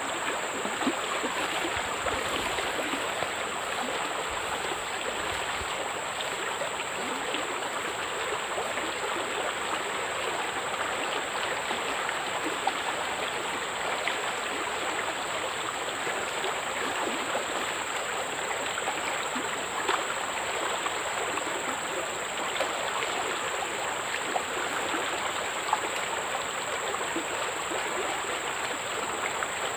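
Steady rush of flowing water, an even crackling hiss with no pauses, with a thin, steady high insect drone above it.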